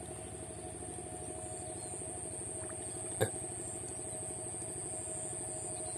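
A small engine running steadily in the background, with a steady high hiss over it and a single sharp click a little past three seconds in.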